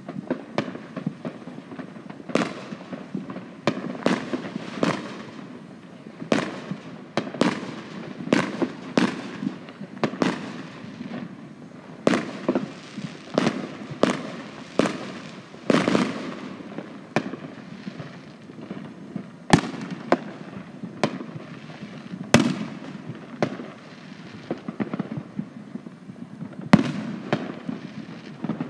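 Fireworks going off: an irregular string of bangs and pops, sometimes several a second, each dying away quickly, with a few sharper, louder cracks in the second half.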